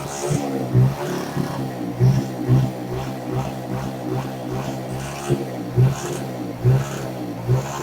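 Small motorcycle engine running through its stock muffler, which has had a hole drilled through the inner baffle tube to deepen the note. It idles with the throttle blipped in quick short revs every second or so, giving a good rumble.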